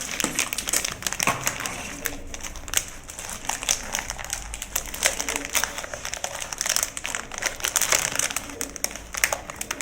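Cardboard box being handled and opened: irregular rustling and crinkling with many small crackles.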